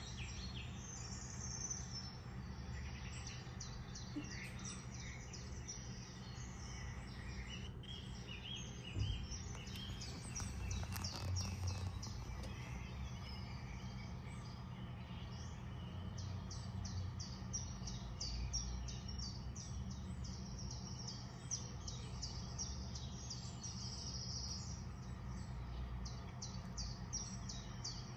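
Birdsong with many short, quick chirps, played from a bird video for cats through an Acer tablet's speaker, over a steady low hum. One knock about nine seconds in.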